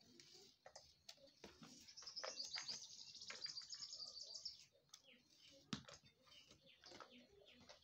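Faint clicks and crackles of a red onion being peeled and cut with a knife over a steel plate. A bird chatters in a rapid high trill from about two seconds in until past four seconds.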